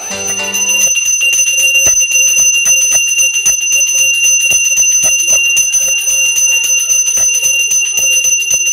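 Puja hand bell rung rapidly and continuously, quick even strokes, several a second, over a steady high ringing tone.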